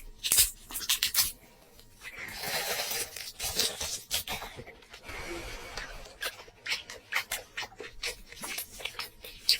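Close-up eating and food-handling sounds: many short, sharp clicks and smacks, with a longer stretch of rustling, tearing noise starting about two seconds in.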